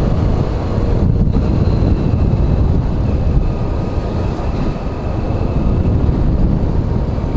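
Honda Pridor 100cc motorcycle riding along with its engine running, under a steady rush of wind on the microphone.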